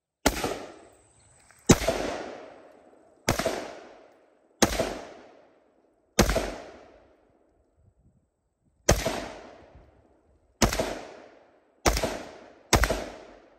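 Nine single rifle shots fired at an uneven pace, each sharp crack trailing off in about a second of echo.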